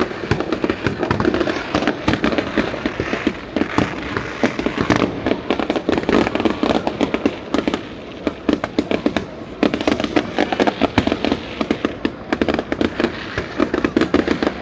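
Fireworks crackling continuously: a dense run of sharp pops and crackles, many a second, easing slightly for a few seconds past the middle before picking up again.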